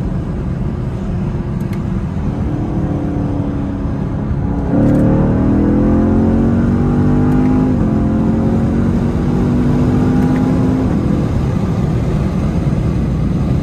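Chevrolet Camaro SS's 6.2-litre V8 at full throttle, heard from inside the cabin with the windows down. Over steady wind and road noise, the engine note jumps in about five seconds in and climbs, drops at a gear change about three seconds later, climbs again, then eases off near the end.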